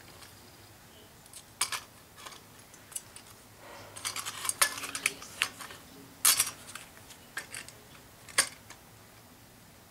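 Irregular metallic clinks and clatter as a metal mounting bracket is handled and fitted onto a new Genteq furnace blower motor.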